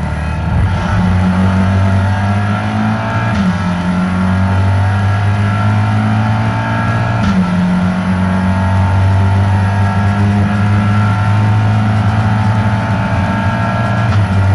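Race car engine heard from inside the cockpit under hard acceleration on track, shifting gears a few times in the first half, then running at a steady high drone.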